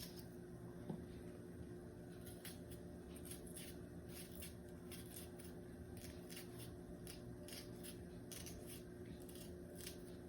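Kitchen knife cutting vegetables on a cutting board: a run of soft, irregular cuts, with a faint steady hum under them and a small knock about a second in.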